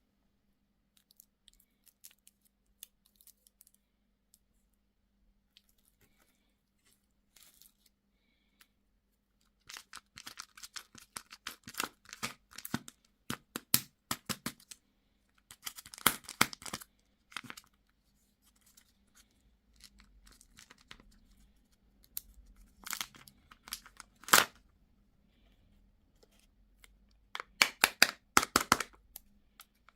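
Crinkly packaging tearing and crackling in several bursts, with near-quiet gaps between them and a faint steady hum underneath.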